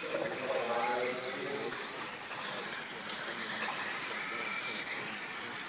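1/10-scale electric 2WD racing buggies running on a dirt track: a steady hiss of motors, drivetrains and tyres on dirt, with a wavering whine in the first couple of seconds.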